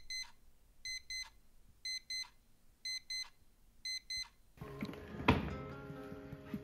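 Digital alarm clock going off: pairs of high electronic beeps, about one pair a second, five pairs in all, then it stops. After the beeping there is louder rustling and handling noise with a sharp thump.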